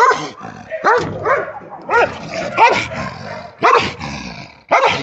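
A dog barking in short, repeated barks, about seven in a few seconds at an uneven pace.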